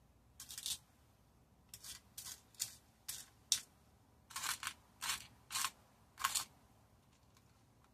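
A dozen or so short, dry clicks and rustles, some in quick pairs, from small craft gems being handled and picked through. They stop about six and a half seconds in.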